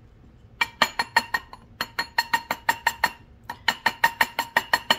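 Rapid hammer taps on a silver ring on a steel ring mandrel, about five strikes a second, each with a short metallic ring, in three runs with brief pauses. The ring is being tapped round on the mandrel.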